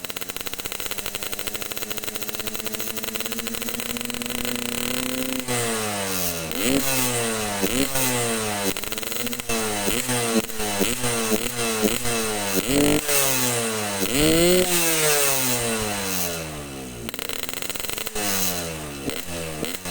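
Yamaha RX-King's single-cylinder two-stroke engine, set up for a raspy 'ngorok' growl, running steadily with its pitch creeping up, then revved over and over with quick throttle blips, about one a second, each rising and falling away.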